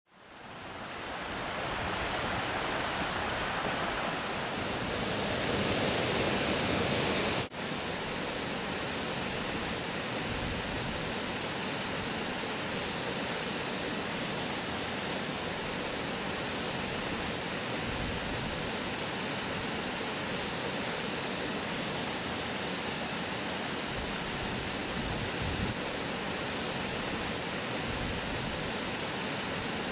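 Fast-flowing stream water rushing over rocks, a steady unbroken rush that fades in over the first second and briefly drops out about seven and a half seconds in.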